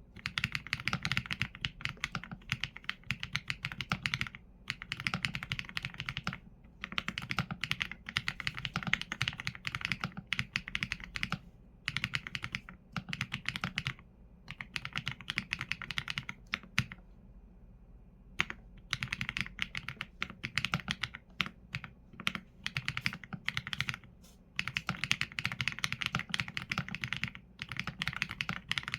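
Typing on a Qsenn A75 mechanical keyboard with Leobog Graywood V4 linear switches and PBT keycaps: fast runs of keystrokes in bursts, broken every few seconds by short pauses of about half a second to a second.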